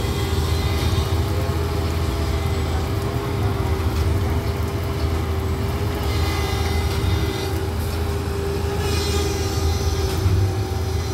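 A Plasser & Theurer 08-32 U ballast tamping machine working along new track. Its diesel engine runs with a steady low rumble and a constant hum. Higher hissing bursts come and go, around 6 and 9 seconds in, as the machine works the ballast.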